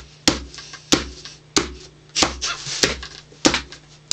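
Cardboard box slapped with the flat of the hand as a hand drum, a steady beat of low thumps about every two-thirds of a second.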